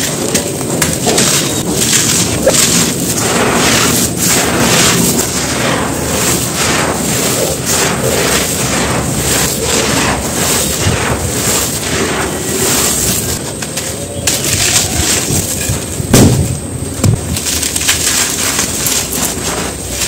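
Dry red dirt chunks being crumbled and crushed by gloved hands, a continuous gritty crunching with grains and dust falling onto loose dirt. A louder thump comes about sixteen seconds in.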